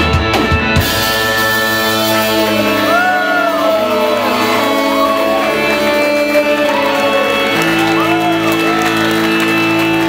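Live rock band: the drums stop about a second in, leaving electric guitars and keyboard ringing on held chords, with guitar notes bending up and down over them.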